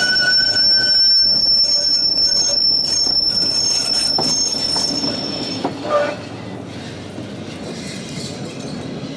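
Vintage electric tram's steel wheels squealing on the rails, a steady high squeal that stops a little past halfway. A short louder sound comes about six seconds in, then the lower rumble of the tram rolling on.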